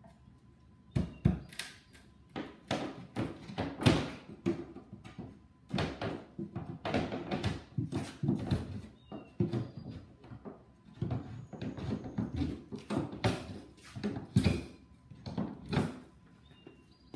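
Pry bar working the lid off a wooden shipping crate: irregular knocks and wood scraping that start about a second in, with a brief high squeal partway through.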